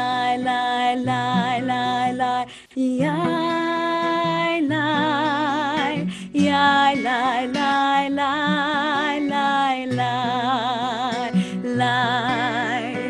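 A female cantor singing a slow melody in phrases of long held notes with vibrato, over a steady instrumental accompaniment of sustained low notes.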